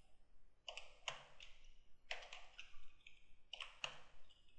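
Faint keystrokes on a computer keyboard: short, sharp key clicks tapped in irregular runs of a few at a time.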